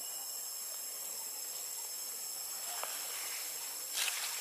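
Steady high-pitched insect drone over a hiss, with a brief faint call about halfway through and a short scratchy rustle near the end.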